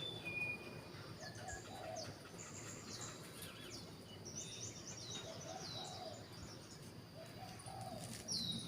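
A songbird singing, a really fast run of high chirps, many of them sliding down in pitch, repeated through the whole stretch, with softer, lower calls underneath.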